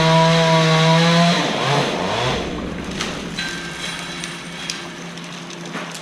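Chainsaw running at full throttle, then its revs drop and waver about a second and a half in as it is let off, settling to a quieter run. A few sharp knocks come later on.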